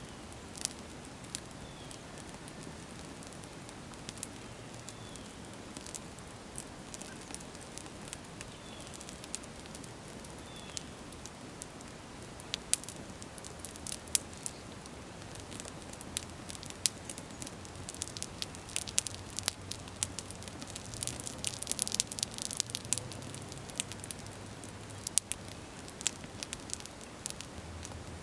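A sneaker burning in an open fire: flames hissing steadily with sharp crackles and pops throughout, which come thicker about two-thirds of the way through.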